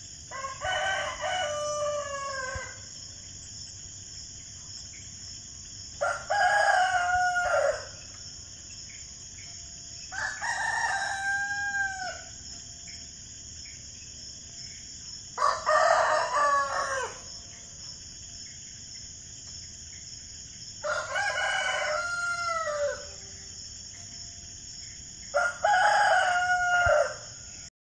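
Rooster crowing cock-a-doodle-doo six times, about every five seconds, each crow about two seconds long and ending in a falling note, over a steady high hiss.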